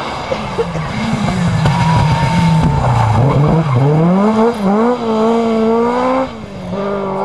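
Historic rally car's engine passing close. The note falls as it slows into the corner, then climbs twice as it accelerates away, with a short dip between the two climbs. It drops back near the end as the car moves off.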